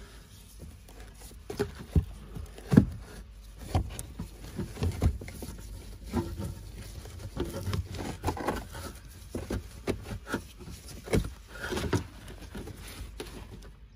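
Irregular plastic clicks, knocks and scraping as a pleated cabin air filter is handled and slid in its plastic filter housing.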